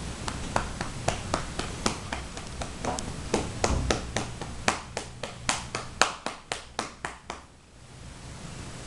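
A hand slapping a Siamese cat's lower back in a quick series of pats, about three to four a second, over a steady hiss. The pats stop about seven and a half seconds in.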